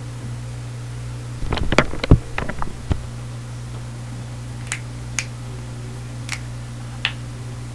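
Knuckles being cracked: a quick cluster of pops and knocks about a second and a half in, the loudest about two seconds in, then four single sharp pops spread out over the next few seconds. A steady low hum runs underneath.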